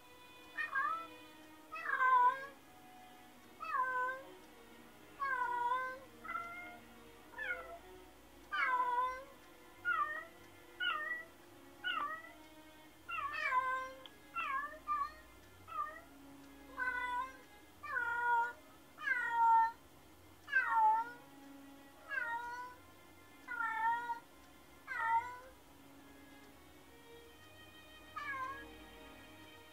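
A cat meowing over and over, about twenty meows roughly one a second, each dropping in pitch at its end, with a short pause near the end. This is lonely crying from a cat left home alone.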